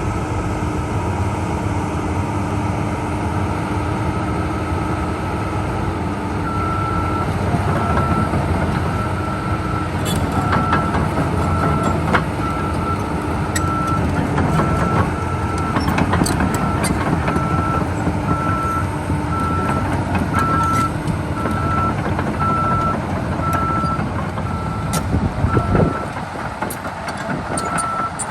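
A Komatsu PC200-7 hydraulic excavator's diesel engine running steadily. Several seconds in, its travel alarm starts beeping about once a second, with scattered clanks and knocks over it. Near the end the engine note drops away while the beeping carries on.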